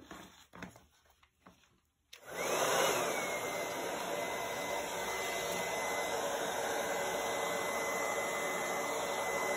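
A hair dryer on its low, cool setting switches on about two seconds in. It gives a steady rush of air with a motor whine that rises briefly as it spins up, then holds one pitch.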